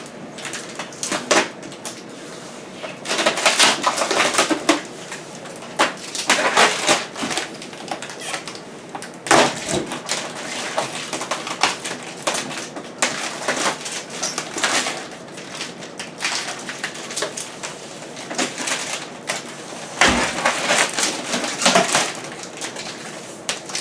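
Protective plastic film being peeled off a stainless steel refrigerator, crackling and tearing in irregular stretches with short pauses between pulls.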